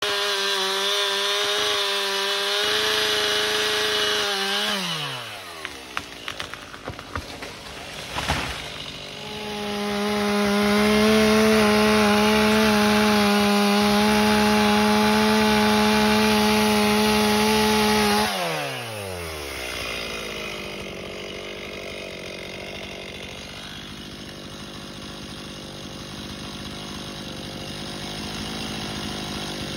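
Chainsaw cutting into a red oak trunk at full throttle, then dropping off about four and a half seconds in. A few sharp cracks follow. The saw then revs back up for a long steady cut and winds down to a quieter running sound for the rest.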